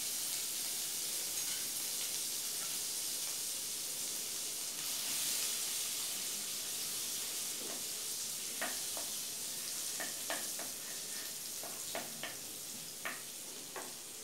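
Butter melting and sizzling in a hot kadhai, a steady high hiss. From about halfway, a wooden spatula stirring it, with scattered taps and scrapes against the pan.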